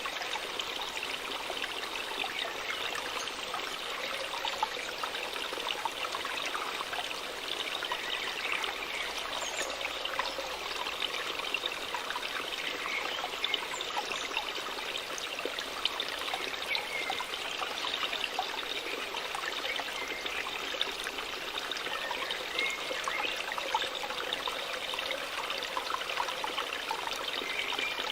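Waterfall water running steadily, an even splashing rush with fine trickling and bubbling detail and no change in strength.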